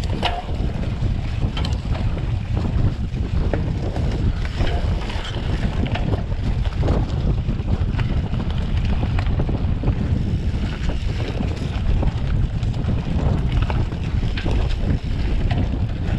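Wind buffeting the microphone of a camera on a mountain bike moving fast down a dirt forest trail, over the steady rumble of knobby tyres on the ground. Scattered short rattles and knocks from the bike jolting over bumps.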